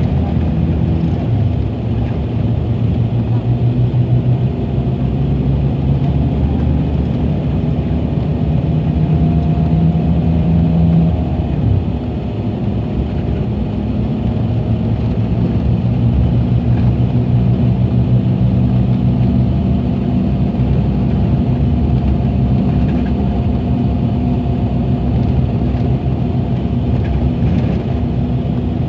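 Scania K380 coach's rear-mounted DC12 inline-six diesel running steadily under way at road speed, heard from inside the passenger cabin as a continuous low drone. It eases briefly about twelve seconds in, then picks up again.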